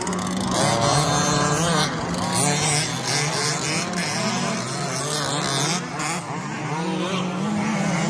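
Several petrol RC Baja buggies racing, their small two-stroke engines buzzing and revving up and down continually.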